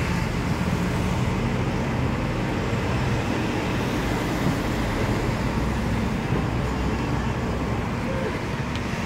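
Steady road-traffic noise from a busy street, an even rumble with no distinct events.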